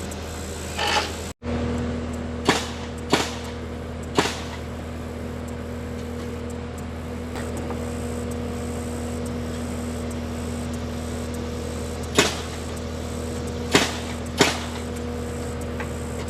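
Sharp nailing strikes fastening cross bracing to wooden roof trusses: three close together, a pause, then three more. Under them runs the steady hum of an idling engine.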